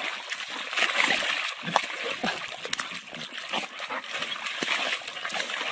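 Wet mud splashing and splattering in irregular bursts as a dog rolls and wriggles on its back in a muddy puddle.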